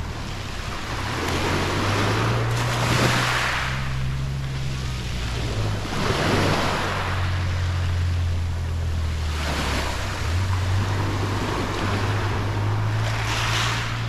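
Small sea waves breaking and washing up the beach, the hiss swelling and fading four times, about every three to four seconds, over a steady low rumble.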